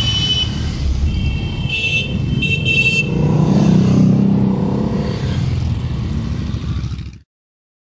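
Several motorcycles riding past one after another in a steady procession, their engines running at cruising speed and rising and falling as each passes. A high thin tone sounds briefly twice in the first three seconds, and all sound cuts off suddenly about seven seconds in.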